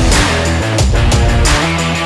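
Loud electronic background music with a driving beat and a heavy, guitar-like edge.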